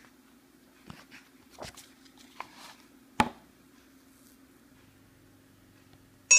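Handling noise as a storybook page is turned and a talking reading pen is moved over it: a few soft rustles and knocks, then one sharp tap about three seconds in, over a faint steady hum.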